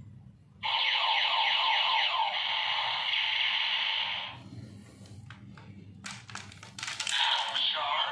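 DX Attache Arrow toy bow's speaker playing an electronic sound effect, a string of falling zaps, for about three seconds. A few sharp plastic clicks follow about six seconds in as the bow is handled, then another electronic sound starts near the end.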